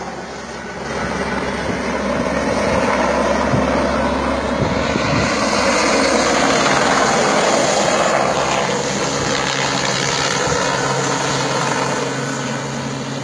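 Helicopter running close by, a steady rotor and engine noise that grows louder about a second in and eases a little near the end.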